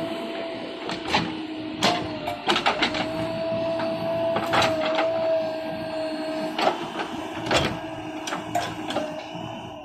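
Bulldozer working: a steady engine whine runs throughout, with irregular metallic clanks and knocks over it.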